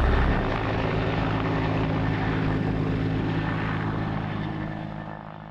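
A rescue helicopter flying past low, its steady engine and rotor sound fading out near the end.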